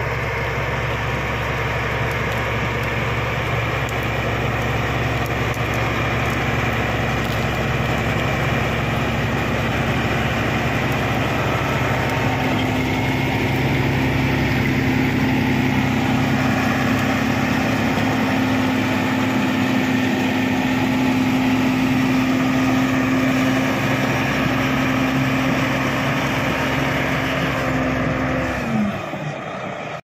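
Shantui SD16 crawler bulldozer's diesel engine running steadily as the machine pushes brush and soil with its blade. A steady engine note holds through the middle and drops in pitch just before the end.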